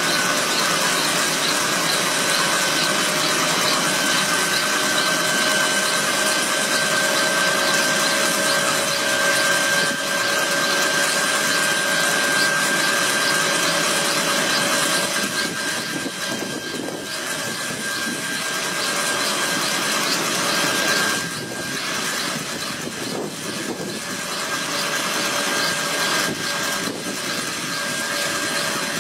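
Kaman K-MAX helicopter's turboshaft engine running on the ground with its intermeshing rotors turning: a steady high turbine whine over a loud rushing hiss, a little quieter and dipping briefly in the second half.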